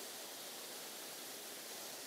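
Steady, even rush of water at a river spillway, a low hiss with no breaks.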